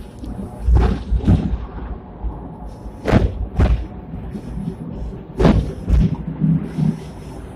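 A Hong Kong double-deck tram running on its street tracks, with a low rumble and its steel wheels thudding over joints in the rails: three pairs of heavy thuds, the two thuds of each pair about half a second apart, a new pair every two seconds or so.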